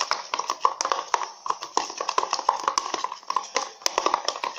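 A utensil stirring a glue-and-cream slime mixture in a small plastic pot, clicking and tapping against the sides several times a second.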